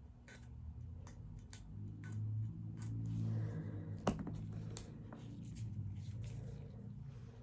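Gloved hands handling Glock 19 pistol parts during cleaning: scattered small clicks and scrapes of polymer and metal, with one sharp click about four seconds in, over a low hum.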